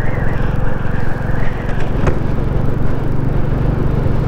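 Royal Enfield Classic 350's single-cylinder engine running steadily as the motorcycle cruises along the road, with one short click about two seconds in.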